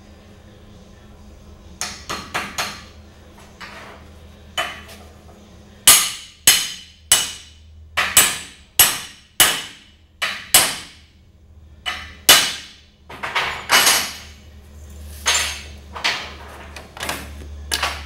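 Hammer striking steel and bronze fabrication parts: a few light taps, then a run of hard blows, about one to two a second, each ringing briefly.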